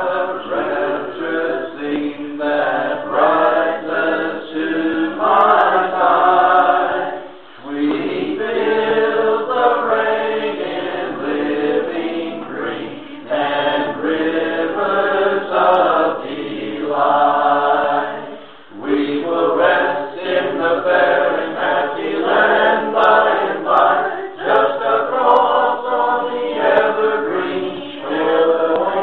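A small group of voices singing a hymn, in long sung phrases with two short breaks, about seven and nineteen seconds in.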